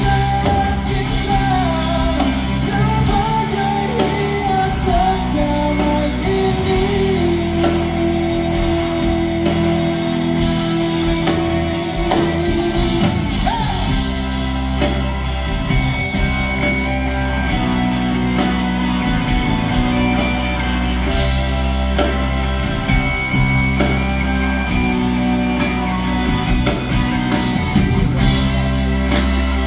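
A live pop band, with drums, bass, guitar and keyboards, plays while a male singer sings into a microphone, heard through the hall from the audience seats. About a quarter of the way in the singer holds one long note for several seconds.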